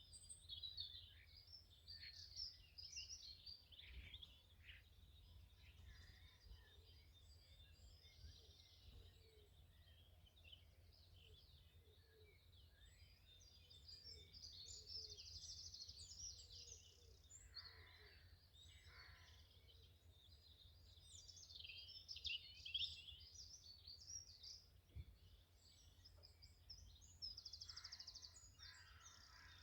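Faint chorus of several songbirds singing at once, a steady stream of chirps and quick trills, over a low steady rumble.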